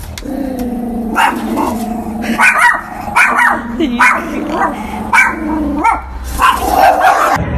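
A dog barking repeatedly, about eight barks, with growling held between them.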